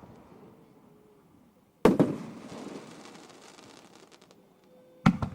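Aerial firework shells bursting twice, about three seconds apart. Each burst is a sharp bang followed by a fading rumble, and after the first comes a spray of small crackles.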